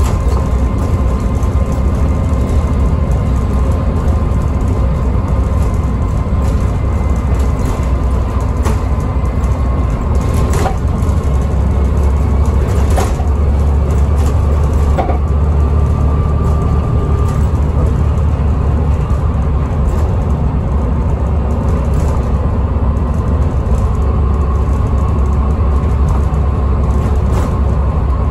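Volvo B7TL double-decker bus with a ZF automatic gearbox, heard from inside while it drives: a steady engine and road rumble with a faint high whine over it. A few sharp rattles sound about ten, thirteen and fifteen seconds in.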